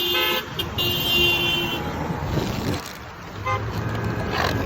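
Car horns honking from passing traffic: a brief toot at the start, a longer steady honk about a second in, and a short beep about three and a half seconds in, over road traffic noise.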